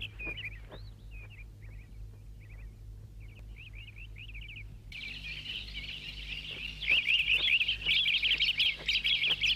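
Small birds twittering in quick, warbling chirps: sparse at first, then a dense chorus that swells about five seconds in and is loudest over the last few seconds.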